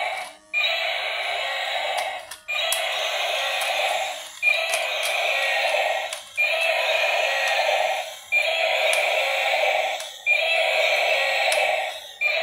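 Battery-powered Godzilla toy playing an electronic sound effect through its small speaker: a thin, noisy burst about a second and a half long that repeats about every two seconds.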